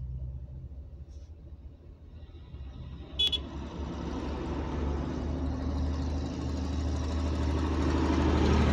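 A short horn toot about three seconds in, then a truck's engine and road noise building steadily louder as a light-decorated lorry draws near.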